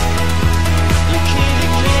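Background music with a steady beat, about two drum strokes a second over a sustained bass.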